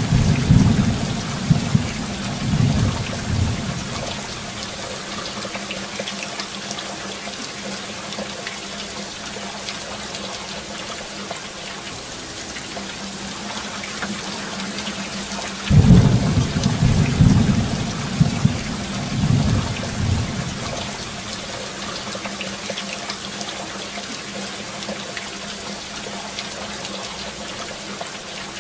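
Steady rain falling, with two rolls of thunder: one rumbling through the first three seconds or so, and another beginning about sixteen seconds in and rumbling for about four seconds.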